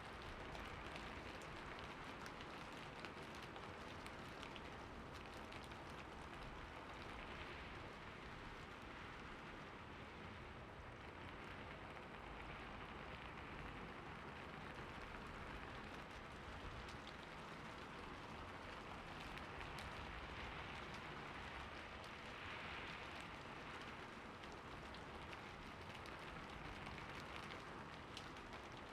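Steady rain falling, an even hiss of many small drops pattering.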